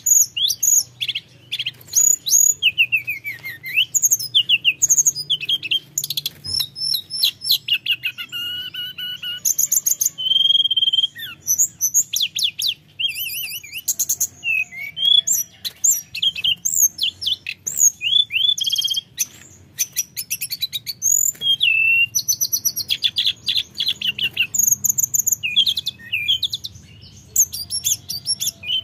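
Hill blue flycatcher singing vigorously: a long, unbroken run of varied phrases, fast trills and slurred whistles.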